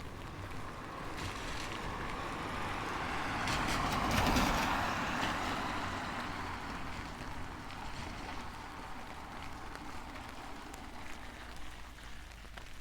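A vehicle passing on a rain-wet road, its tyre hiss swelling to a peak about four seconds in and then slowly fading, over steady rain.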